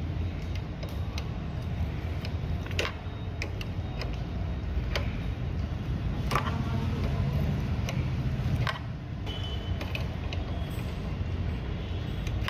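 Pliers working a motorcycle drum-brake adjuster nut on its rod, giving scattered sharp metal clicks and creaks over a steady low rumble, as the brake is tightened.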